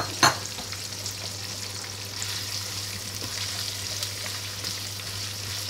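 Eggplant pieces sizzling steadily as they fry in hot oil in a pan, with a single sharp knock just after the start and a few faint ticks as a spatula stirs them.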